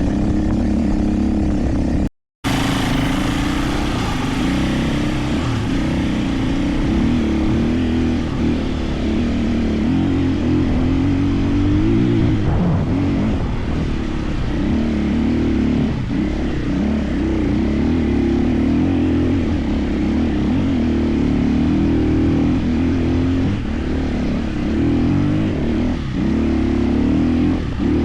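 KTM 450 EXC enduro motorcycle's single-cylinder four-stroke engine running at a fairly steady pitch while riding, with a brief cut to silence about two seconds in.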